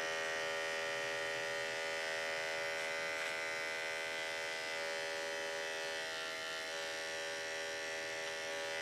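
Electric dog grooming clippers running with a steady buzz, used to clip knots out of a dog's coat.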